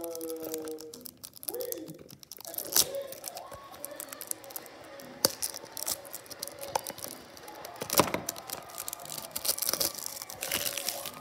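Clear cellophane wrapper being torn and peeled off a small cardboard toy-car box, crinkling with many sharp crackles.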